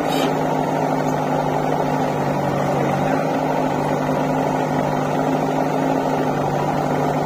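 JCB 3DX backhoe loader's diesel engine idling close by, a steady drone that holds the same speed throughout.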